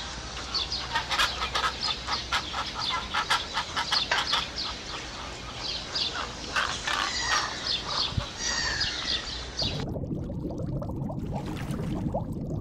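A flock of birds calling, a dense run of short, high chirps and clucks. About ten seconds in it cuts off and a lower, steady noisy sound takes over.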